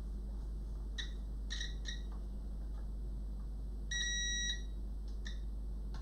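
Multimeter continuity beeper: a few brief chirps about a second in as the probes make and break contact, then one steady beep of about half a second near the middle, signalling a continuous connection through the amplifier's phono input connector.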